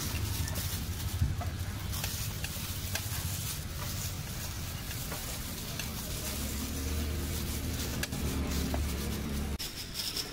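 A plastic-gloved hand mixing a potato chaat filling in a steel plate, with scattered light clicks, over a steady low hum that cuts off shortly before the end.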